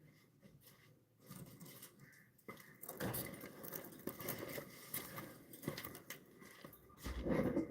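Pet budgies moving about their cage: scattered light taps, scratches and rustles with faint soft chatter. A louder, lower sound comes near the end.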